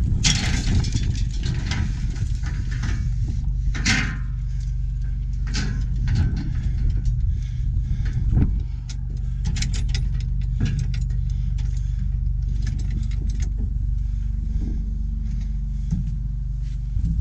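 A vehicle engine running steadily at a low, even pitch, with scattered clicks and knocks over it, a burst of them at the start and another about four seconds in.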